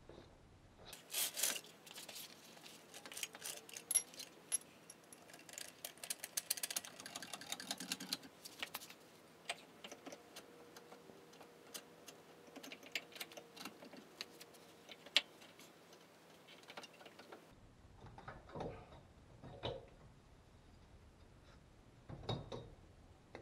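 Metal hand tools clicking and clinking while wrenching on the suspension: a dense run of rapid ticking a few seconds in, then scattered clicks, and a few duller knocks near the end.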